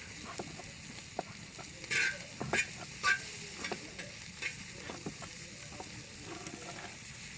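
Pork offal sizzling on a cast-iron cauldron lid over a wood fire, a steady frying hiss with a few short, sharp clicks about two to five seconds in.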